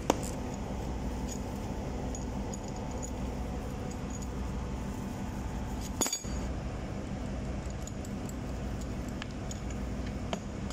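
Light metallic clinks and taps of a socket wrench and steel clamp being worked loose on a Wilden air-operated diaphragm pump, over a steady low machinery hum.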